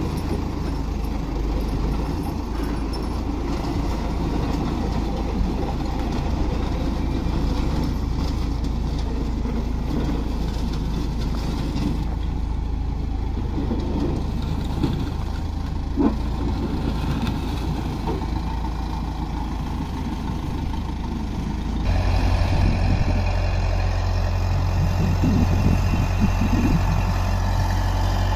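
Diesel engine of an old Hanomag wheel loader running steadily under load as it moves a wrecked BTR-40 armoured-car hull slung on a chain from its bucket. The engine gets louder about 22 seconds in.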